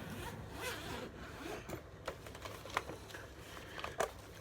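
A zippered tool carrying bag being opened and its contents handled: zip and fabric rustling, with a few sharp light knocks.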